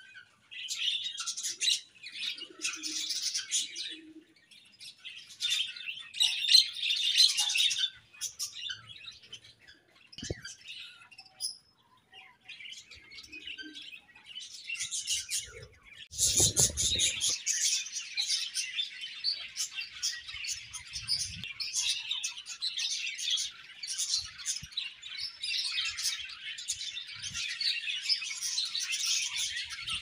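A flock of budgerigars chirping and chattering, in short bursts for the first half, then as a continuous dense chatter from about halfway on. A brief low rumble about halfway through.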